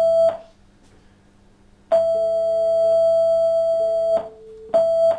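Synthetic sine-tone 'voices' at two pitches a perfect fifth apart, taking turns. The higher tone ends just after the start, then comes back after about a second and a half of quiet and holds for about two seconds. The lower tone cuts in briefly during it and again just as it stops, and the higher tone returns near the end. This is a simulated conversation built on human conversational turn-taking timing.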